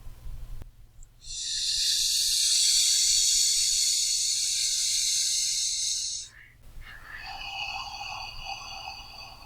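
A person doing slow deep breathing, in through the nose and out through the mouth: one long, loud hissing breath of about five seconds starting a second in, then a quieter breath starting about seven seconds in.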